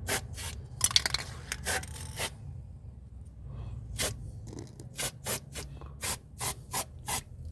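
A run of short scraping, rubbing strokes, irregular at first and then about three a second, as petroleum jelly is worked onto the car's rubber suspension parts, over a steady low rumble.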